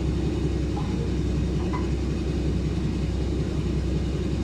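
Lxd2 narrow-gauge diesel locomotive's engine idling steadily close by, a constant low rumble.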